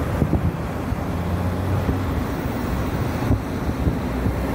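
Engine and road rumble of a car driving along, heard from inside the car, with wind buffeting the microphone.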